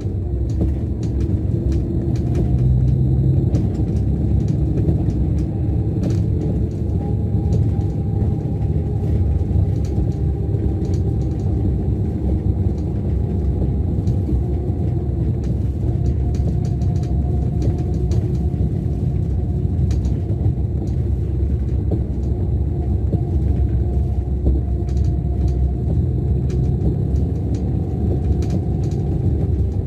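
The rear-mounted Scania DC13 straight-six diesel of a Scania K410 double-decker coach running as the coach drives, heard from inside the lower deck: a steady low rumble with occasional light clicks and rattles.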